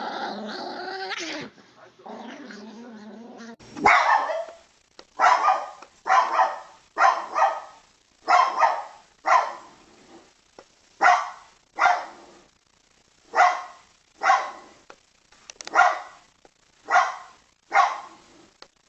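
A dog growls for the first few seconds, then barks over and over, short sharp barks roughly once a second.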